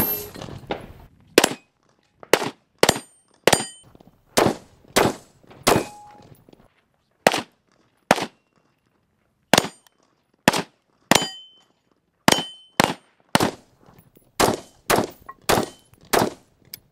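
Semi-automatic .223 AR-style rifle firing about twenty shots in quick strings, the shots often less than a second apart. Several shots are followed by the short metallic ring of a steel target being hit.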